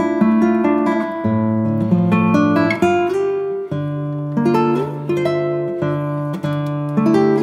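Background music: an acoustic guitar picking and strumming chords that change every second or so.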